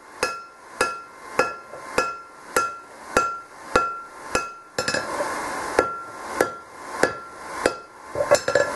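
Hand forging: a hand hammer strikes a red-hot steel hammer head held in tongs on an anvil, in a steady rhythm of roughly three blows every two seconds. Each blow rings with a clear metallic tone.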